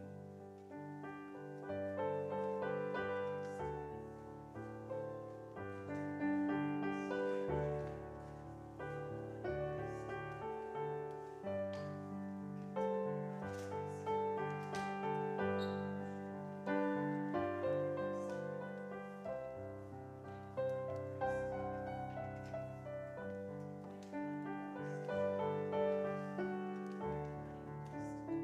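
Solo digital piano playing chords over a bass line that moves about once a second, instrumental with no singing.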